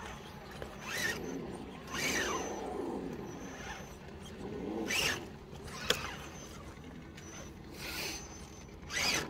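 Electric motor of an RC crawler revving in short bursts, its whine sliding up and down in pitch with each burst, about six times. There is a sharp click a little before the end.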